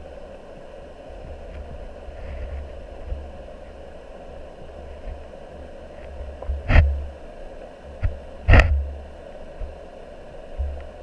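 Muffled river water heard through a submerged camera's waterproof housing: a steady low rumble and hiss, with a few sharp knocks, the loudest two about seven and eight and a half seconds in.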